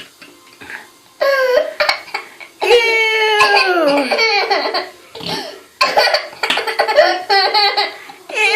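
A small child laughing in several bursts, the longest a high laugh that slides down in pitch.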